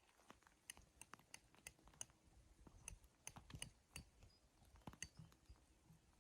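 A quiet run of irregular sharp clicks and light knocks, several a second.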